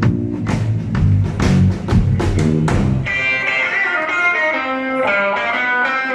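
Live rock trio playing an instrumental passage: drums and bass hit together with guitar chords for about three seconds, then the electric guitar plays a quick run of single notes.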